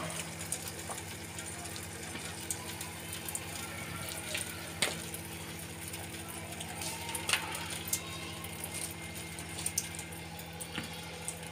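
Thick tomato-onion Manchurian gravy bubbling at a rolling boil in a pan, with a few short plops and clicks as fried Manchurian balls are dropped in by hand. A steady low hum runs underneath.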